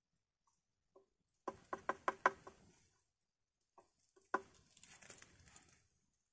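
A quick run of about six hollow, ringing knocks on a bamboo tube, then a single knock followed by scraping: cooked rice being knocked loose and scraped out of the tube it was cooked in.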